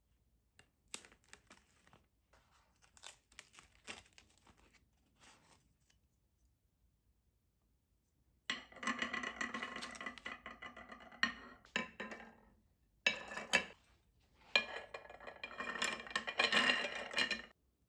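Clear plastic film crinkling and tearing as it is peeled off a tray of king scallops in half shell. Scallop shells then clink and scrape on a ceramic plate, louder and denser in two stretches in the second half.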